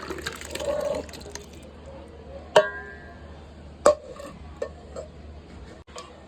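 Liquid poured into a cooking vessel for about a second, then two sharp clinks of a utensil against the vessel, the first ringing briefly.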